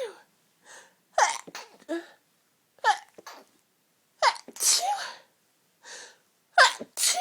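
A woman's sneezing fit: about half a dozen sharp, intense sneezes in rapid succession, each cut off quickly, with brief silent gaps between them.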